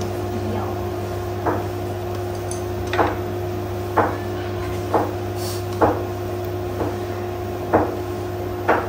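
A series of short knocks about once a second over a steady low hum.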